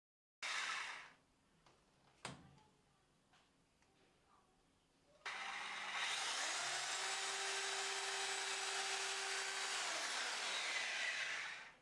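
A power drill runs steadily for about six seconds in the second half, cutting off shortly before the end, after a brief burst of noise and a single click earlier on.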